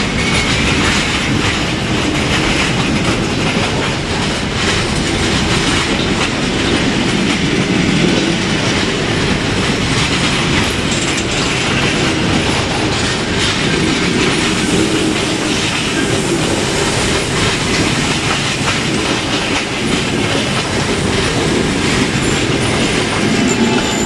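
Long passenger train of coaches passing close by at a steady speed: a continuous rumble with the clatter of wheels running over the rails.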